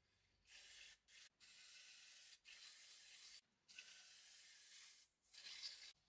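Aerosol brake cleaner sprayed into a motorcycle's front brake caliper with the pads removed: a faint hiss in a string of bursts about a second long, with short breaks between.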